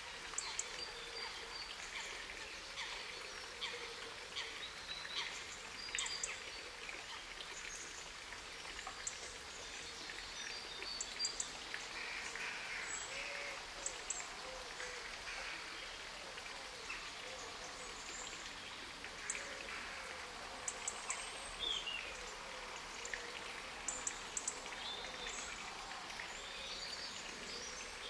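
Outdoor nature ambience: small birds chirping and calling here and there over a steady faint hiss.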